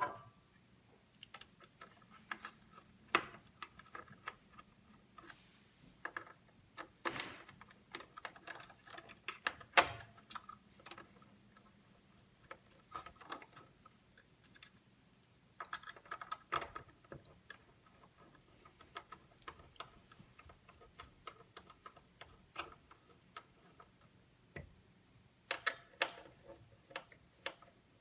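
Irregular small clicks, taps and scrapes of metal parts and a screwdriver as an M.2 drive's heat shield is laid back onto the motherboard and screwed down, the loudest tap about ten seconds in.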